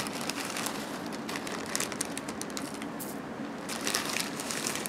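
Clear plastic zip-top bag crinkling and rustling in the hand while dirt is tipped out of it into a bowl, in a run of irregular crackles.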